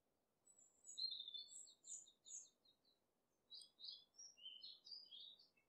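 A small bird singing faintly: a quick run of high chirps from about half a second in, a short pause, then a phrase of varied notes.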